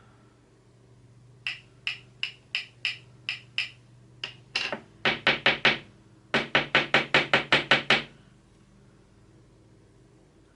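Sharp taps of a makeup brush against a jar of loose powder, shaking off the excess powder. They come in three runs: a slow run of about seven taps, a quicker cluster, then a fast run of about ten taps that stops about eight seconds in.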